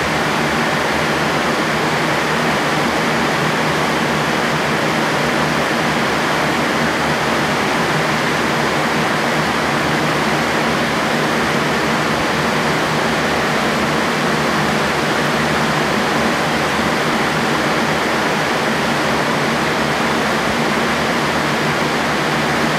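Several electric fans running at high speed in a tornado vortex simulator: a steady, loud rush of air with an even low motor hum underneath.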